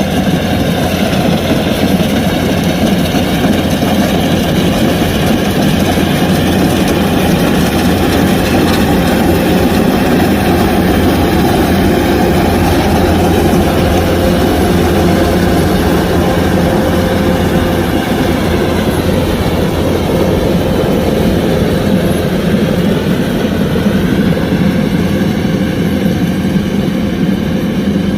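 Kubota DC-105X combine harvester running steadily and loudly while harvesting rice, its engine and machinery making a continuous drone.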